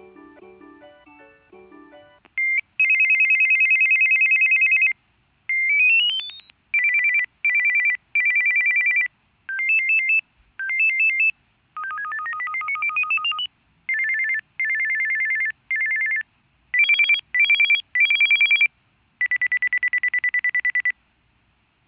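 Samsung SCH-R610 mobile phone playing its built-in ringtones one after another through its small speaker. A short melodic tune ends about two seconds in. Then comes a run of electronic beep ringtones (warbling two-note trills, a rising glide, quick beeps, a climbing scale, a steady tone), each cut off after a second or two.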